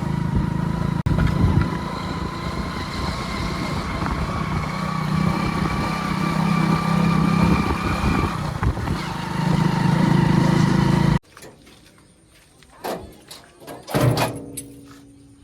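Heavy diesel vehicle engine running loudly and steadily with a whine over it. It cuts off abruptly about eleven seconds in, and scattered quieter knocks and clatter follow.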